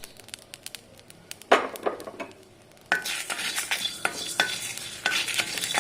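A spatula stirring and scraping whole spices (peppercorns, cumin, dried red chillies, coriander seeds) roasting in an iron kadai, with the seeds ticking and rattling against the pan. One short scrape comes about a second and a half in; steady stirring starts about three seconds in.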